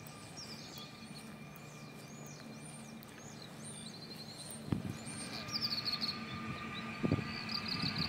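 Small birds chirping over a faint steady hum. From about halfway, an approaching PESA Elf electric multiple unit grows louder, with a steady electric whine and a series of low knocks from its wheels.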